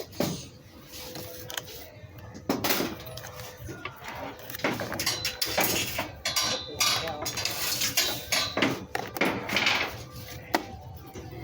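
Irregular clicks, knocks and clatter of hard plastic parts of a Bissell CleanView Helix bagless vacuum cleaner being handled, with the motor not running.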